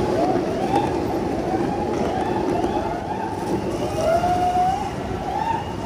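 Longboard wheels rolling over city pavement, a steady rushing noise, with short high squeals that rise and fall now and then; the clearest is a longer wavering squeal about four seconds in.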